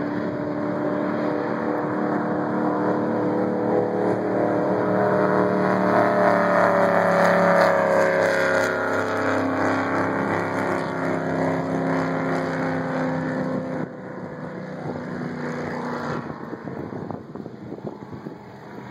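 Powerboat engine running at full speed on a fly-by: it grows louder as the boat approaches, peaks about seven to eight seconds in with the pitch sliding down as it passes, then drops away sharply and fades as the boat runs off.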